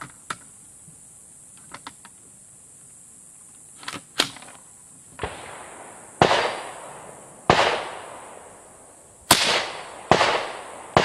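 AR-57 rifle with a 12-inch barrel firing 5.7x28mm Elite Ammunition ProtecTOR rounds: after a few light clicks of handling, one softer shot and then four loud shots come one to two seconds apart, each with an echoing tail.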